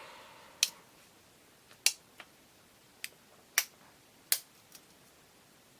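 Victorinox Climber Swiss army knife's tools clicking as they are worked open and snapped against their back springs, about seven sharp, irregular clicks; the tool being pried out is very stiff.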